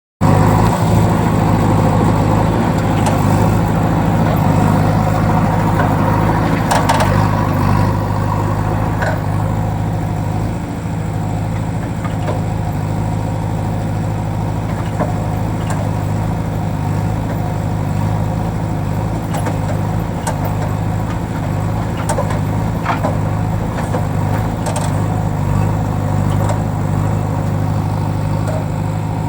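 JCB construction machine's diesel engine running steadily, a little louder for the first eight seconds or so and then settling to an even idle-like hum, with a few faint clicks and knocks over it.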